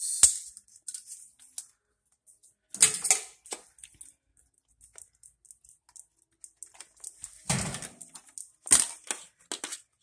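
Scattered clicks and plastic clatter of test leads and a handheld clamp meter being handled, in short irregular clusters about three seconds in, around seven and a half seconds and near nine seconds.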